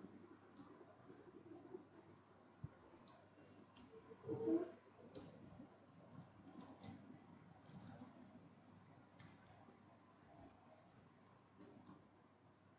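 Faint, irregular computer keyboard clicks as commands are typed. About four and a half seconds in there is a brief, louder, muffled sound.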